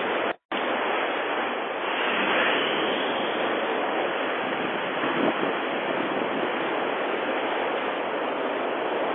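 Steady rushing roar of a wind-driven wildfire burning close by, heard through a Ring video doorbell's microphone, with a brief dropout just under half a second in.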